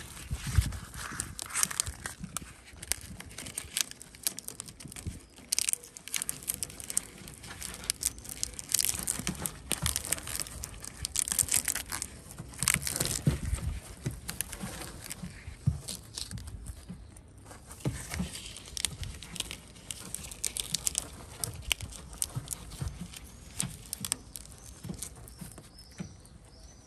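A rabbit tearing at and chewing fresh green leaves, with straw bedding rustling: irregular crunching and crackling throughout.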